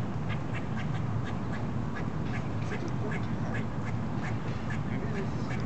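Squirrel alarm calls: a run of short, sharp calls, about three or four a second and unevenly spaced, the squirrel scolding the cat that has just chased it up the tree.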